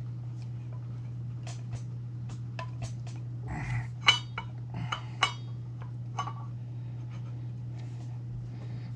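Metal hydraulic-cylinder parts clinking and knocking together as they are handled and fitted: a run of small clicks with two louder ringing clinks around the middle. A steady low hum lies underneath.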